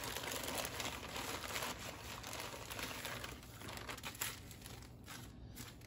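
Clear plastic packaging bags crinkling and rustling as they are handled, with small crackles, growing fainter near the end.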